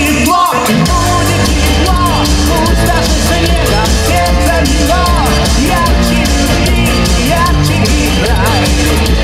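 Live band playing an amplified pop-rock song: electric guitars, bass guitar and drums, with a singer's voice over them.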